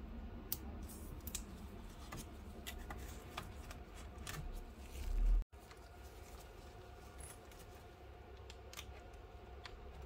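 Small sharp clicks and taps from gloved fingers pressing and fitting the flex cable and charging-port board inside an opened tablet, several a second. About halfway through the sound cuts off suddenly, leaving a low steady hum with only a few faint clicks.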